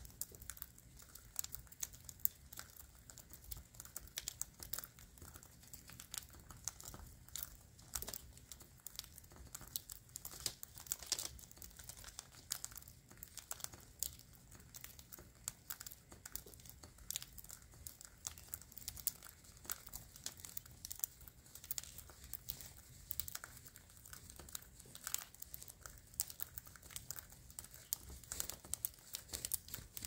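Dense, irregular crackling: many small sharp clicks, with no chirping.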